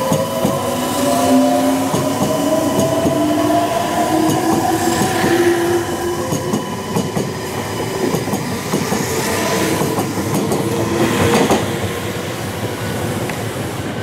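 Meitetsu 3500 series and 3100 series electric train pulling out: the traction motors' whine rises steadily in pitch as it accelerates, with wheels clacking over rail joints.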